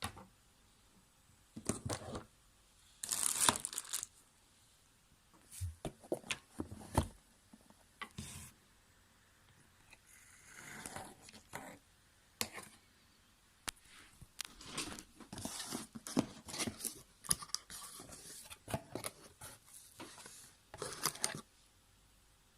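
Packaging being torn open and crinkled by hand, in irregular bursts of tearing and rustling with small clicks and pauses between.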